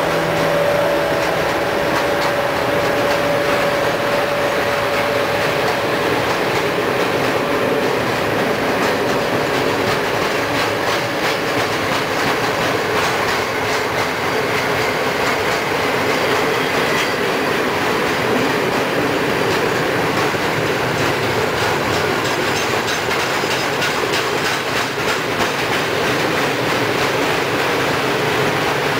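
A train passing close by, its wheels clicking rapidly and steadily over the rail joints, with a steady tone that fades out about ten seconds in.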